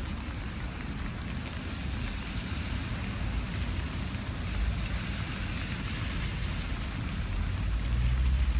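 Steady rain falling, with a low rumble that grows louder near the end.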